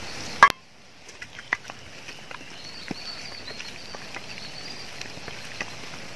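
Raw chicken pieces dropping from a pot into a steel bowl with a short clatter, then a hand squishing and mixing the chicken into a wet spice-and-egg masala, with sparse soft clicks. A faint high chirping runs through the middle.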